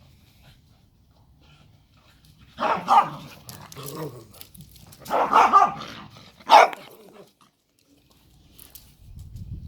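Dogs barking in play: a bout of barks about three seconds in, then a longer bout and one sharp bark a couple of seconds later.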